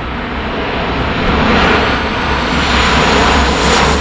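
Twin-engine jet airliner approaching low overhead, its engine noise growing steadily louder, with a high-pitched whine coming in over the last second or two.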